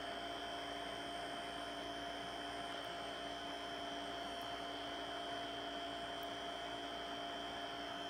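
Small electric nail-wrap heater running with a steady hum and hiss.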